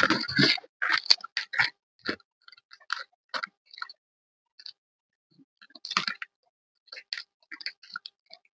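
Gym chalk crunching and crumbling as it is crushed: several loud crunches in the first two seconds, then scattered small crackles, another crunch about six seconds in, and more crackles near the end.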